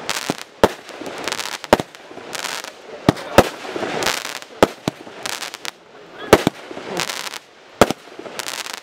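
Aerial fireworks bursting overhead: an irregular series of sharp bangs, about ten in all, some coming in quick pairs, with a noisy crackle and hiss between them.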